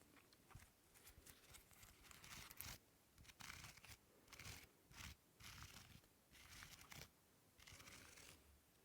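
Faint scratching and crinkling of small objects handled close to the microphone, in short strokes about once or twice a second with small clicks between them.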